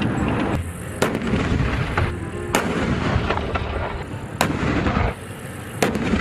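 A tank's cannon firing several sharp shots, a second or more apart, over a continuous rumbling engine and track noise.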